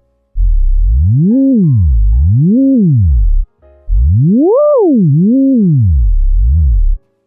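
Synthesized gliding tone whose pitch rises and falls as a pen traces the shape of a handwritten name. It makes two rising-and-falling swoops, breaks off briefly about three and a half seconds in, then climbs to a higher peak and falls through smaller swoops. Faint short notes sound softly behind it.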